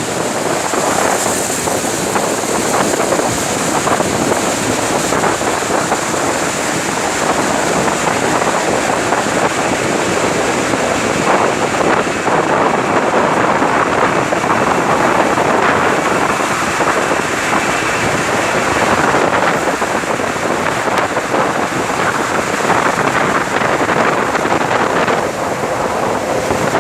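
Steady, loud rushing noise of wind buffeting the microphone, mixed with the running noise of a moving vehicle.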